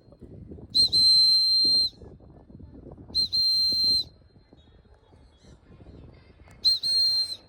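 A bird-training recall whistle blown in three blasts, each a quick pip followed by a steady, shrill held note of about a second. It is the handler's recall signal to a free-flying macaw.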